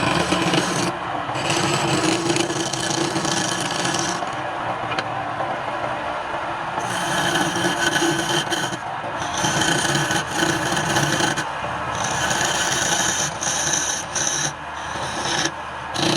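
Wood lathe running with a hand-held turning tool scraping against the spinning wood, the cutting hiss starting and stopping several times over a steady motor hum.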